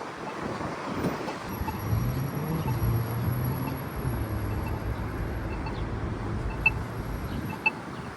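Road traffic: a motor vehicle's engine running with a low steady hum that swells and then eases as it passes. Faint ticks about once a second from the Polara iNS2 accessible pedestrian signal push button's locator tone.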